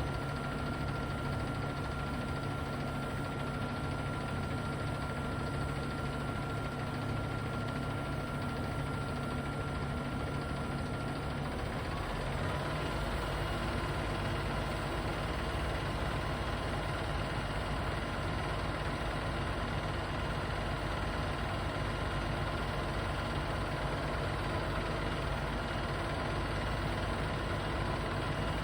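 Boom truck's engine running steadily. About twelve seconds in its note shifts and it gets slightly louder.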